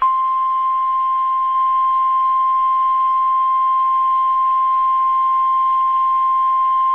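NOAA Weather Radio 1050 Hz warning alarm tone, a single steady high tone that starts abruptly and holds unbroken, sounded as the weekly test of the receivers' alarm.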